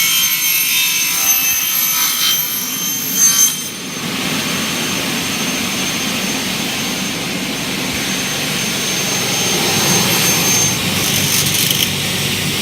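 Circular saw blade of a KingMac K20 double-head aluminium cutting machine cutting an aluminium window profile dry, without coolant, in automatic mode. A loud high-pitched screech with a ringing whine for about the first three and a half seconds, then a quieter, steady running whine.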